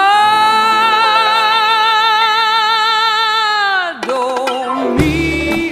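Song playing: a long note held with vibrato for nearly four seconds, then a shorter note, and a bass and beat come in about five seconds in.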